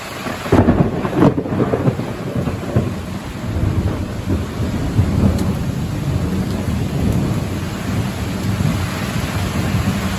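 Thunderstorm: a loud thunderclap breaks about half a second in and rolls on as a long, uneven low rumble, over the steady hiss of heavy rain.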